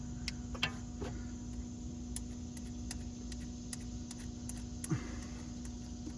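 Light clicking of a hand ratchet on one of the Audi A4 axle's six flange bolts: a few sharper clicks in the first second, then a run of softer ticks about three or four a second, and one louder click near the end. A steady low hum runs underneath.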